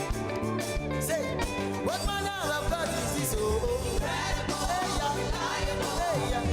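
Music: a song with a solo singing voice over a band backing with a steady beat.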